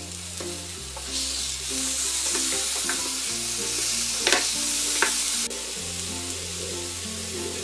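Marinated chicken pieces sizzling in hot oil in a nonstick frying pan as a spatula turns them, with a few sharp scrapes of the spatula against the pan. The sizzle drops suddenly about five and a half seconds in.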